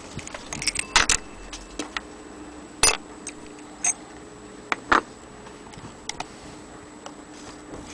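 Irregular metallic clicks and light knocks from a brass French mantle clock movement being handled and turned over by hand. The loudest come about one, three and five seconds in, with no steady ticking beat.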